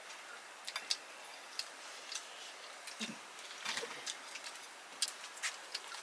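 A metal spoon clicking against a stainless steel bowl in sharp, irregular ticks while noodles are eaten from it.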